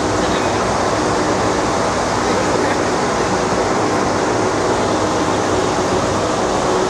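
Water treatment plant machinery running with a steady, loud hum and rushing noise that holds constant throughout, with a couple of fixed low tones.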